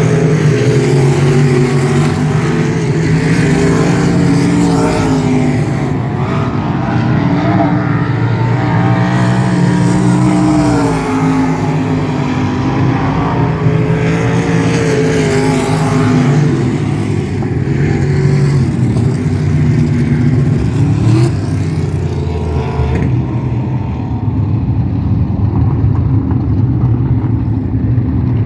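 Winged sprint car engine lapping a dirt oval, its note repeatedly rising and falling.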